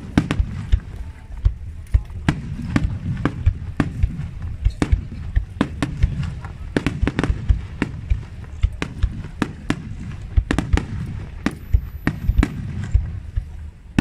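Fireworks display: aerial shells and rising fireworks bursting in rapid, irregular succession, dozens of sharp bangs, often two or three a second, over a continuous low rumble.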